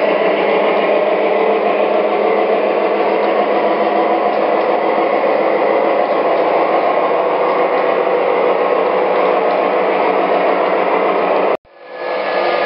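Atlas O Gunderson double-stack well cars rolling on three-rail O-gauge track, a steady mechanical clatter of wheels and trucks on the rails. The sound cuts out abruptly near the end and comes back a moment later.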